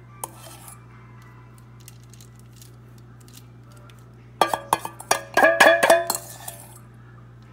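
Metal spoon clinking and scraping against a bowl as marinade is scooped out: a quick run of ringing clinks lasting about two seconds, starting a little over halfway through, over a faint steady hum.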